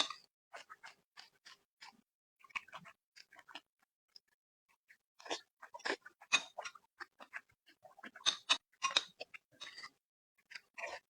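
Close-miked chewing of someone eating: clusters of short mouth and food noises with pauses of about a second between them.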